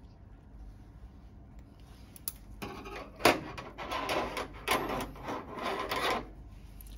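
Gloved hands rubbing and rustling against a silicone suture-practice model as a stitch is tied by hand. There are two sharp clicks, about three and a quarter and four and three-quarter seconds in.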